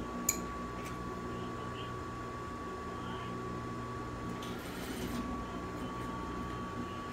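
Industrial sewing machine's motor humming steadily, with a sharp click just after the start and a short burst of stitching about five seconds in.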